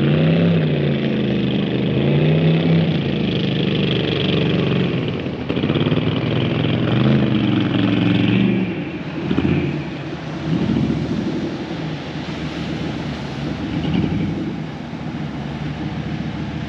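An engine running with its pitch rising and falling repeatedly, then fading after about ten seconds, leaving a steady wash of background noise.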